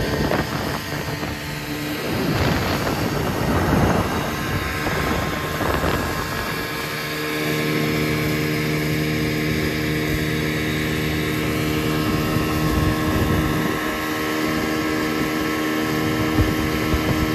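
Small fishing boat's motor running at a steady speed, a steady hum, with wind buffeting the microphone and water noise. The hum is partly covered by a rush of wind and water from about two to seven seconds in, then runs steady again.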